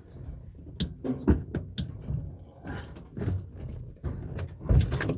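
Irregular knocks, clanks and rattles of refrigerator parts being pulled and worked apart by hand for scrap, the loudest knocks about a second in and near the end.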